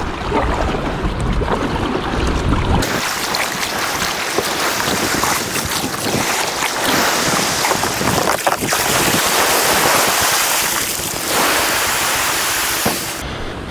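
Wind rumbling on the microphone for about three seconds, then an abrupt cut to a steady loud hiss of small waves washing up a sandy shore around a kayak, which stops suddenly near the end.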